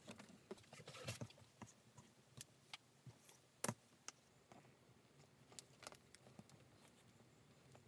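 Near silence with faint, scattered clicks and taps from hand leatherwork: a pricking iron punching stitch holes in a leather strap, then the strap and waxed thread being handled. The sharpest tap comes a little before four seconds in.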